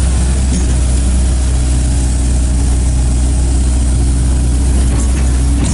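Heavy diesel engines of a mud-stuck crate truck and a tracked excavator running steadily at a low, even idle.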